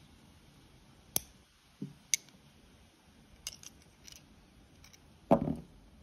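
Blades of a Buck 380 mini trapper slipjoint pocket knife being worked open and snapped shut: several short, sharp metallic clicks a second or so apart, then a louder, duller knock about five seconds in.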